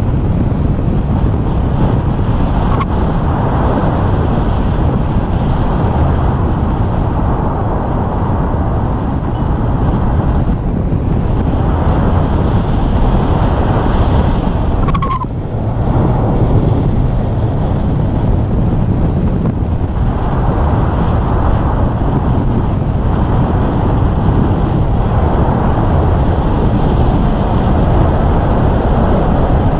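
Wind rushing over a handheld camera's microphone in flight under a tandem paraglider: a steady, heavy rumble. It dips briefly about halfway through, with a short click.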